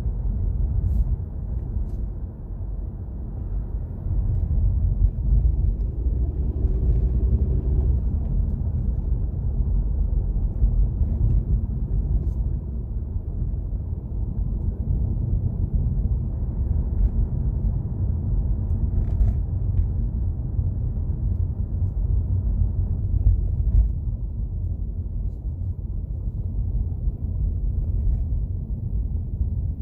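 Honda Civic 1.5T with a CVT running, a steady low rumble, with a faint short whine about seven seconds in. The owner cannot tell whether this whine is normal CVT or turbo sound.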